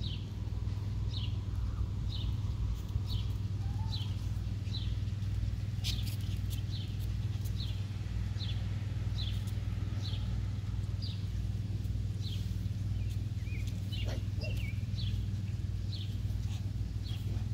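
A bird calling over and over outdoors, short falling high chirps a little more than once a second, over a steady low hum.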